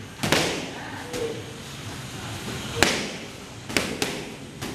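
Boxing gloves smacking into focus mitts during a pad session: one sharp smack early, then after a pause a quick run of four, each with a short echo.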